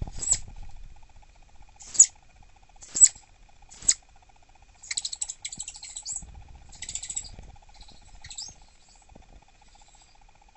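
Southern flying squirrel giving sharp, high-pitched chirps of annoyance: four single chirps about a second apart, then a rapid run of chirps and a short cluster, with a few fainter ones trailing off.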